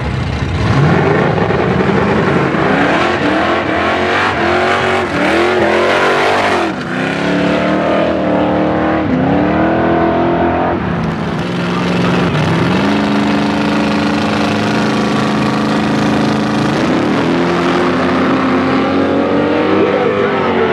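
Drag-racing cars launching off the line, their engines rising in pitch and dropping back at each of several gear changes as they run down the strip, followed by a steadier engine note that climbs again near the end.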